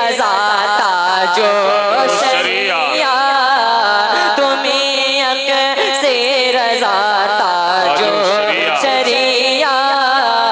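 A young man's voice singing a naat, an Urdu devotional song, into a microphone. He holds long, ornamented notes that bend up and down in pitch.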